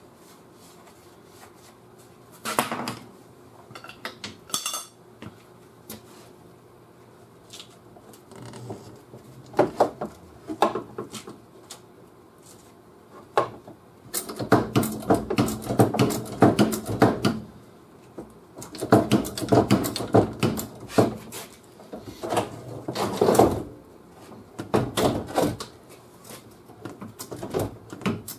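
Irregular metallic clanking and rattling as steel tools and parts are handled and knocked against the car's body, a few scattered knocks at first, then dense runs of clatter through the middle and later part. One brief high metallic ring sounds just before five seconds in.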